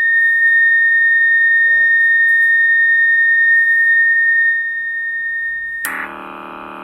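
Modified roger beep of a Cobra 29 NW LTD Classic CB radio, held on by an added switch: one steady high beep tone for about six seconds, then a switch near the end to a low buzzing tone, the 'buzzer fart' sound.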